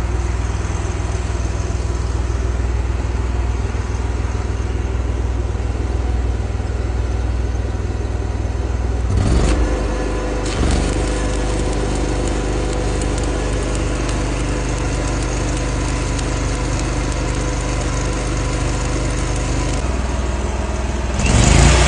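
An engine running steadily. About nine seconds in there is a brief louder surge, after which a steady higher hum joins, and the sound swells again near the end.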